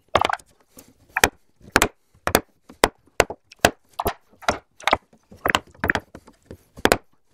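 Wooden mallet striking a chisel, chopping out the waste between hand-cut finger joints in a wooden board: a steady run of sharp knocks, about two a second.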